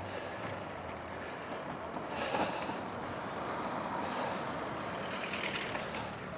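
Road traffic: motor vehicles going past, swelling up about two seconds in and again a little later, over a steady rush of wind and road noise.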